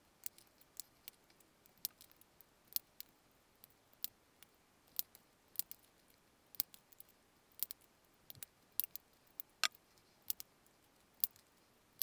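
Single hole punch snapping through the thin metal rim of a 3 oz Fancy Feast can: sharp clicks, one or two a second, unevenly spaced, as a row of holes is punched.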